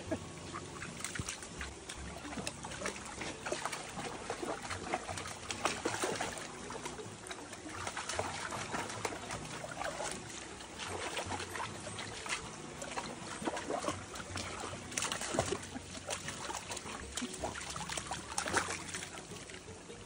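Shallow stream trickling over rocks, with many short irregular splashes as a golden retriever puppy wades through the water.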